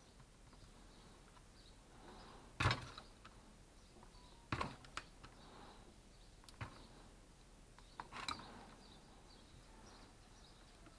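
Hand tools and small metal parts clicking and knocking against the opened motor housing of a handheld electric circular saw and the workbench during repair: a few separate sharp knocks, the loudest about three seconds in, others around four and a half, six and a half and eight seconds in.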